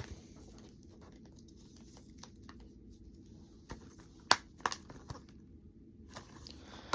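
Packaging being handled and crinkled, with several sharp clicks a little past the middle and another at the end.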